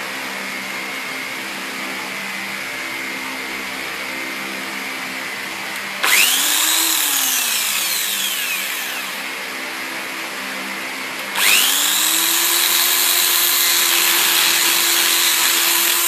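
Electric drill boring holes in a plastic water pipe for drinker nipples. About six seconds in it spins up briefly and winds down. From about eleven seconds it runs steadily through to the end, over a steady background hum.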